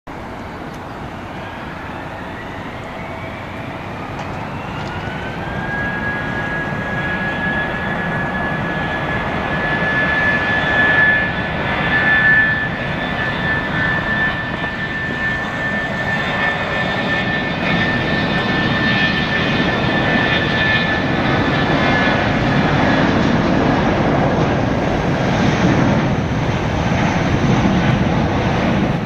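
Airbus A319's IAE V2500 turbofan engines spooling up to takeoff power: a whine rises in pitch over the first few seconds and then holds steady as the jet noise grows louder. A deep rumble builds near the end.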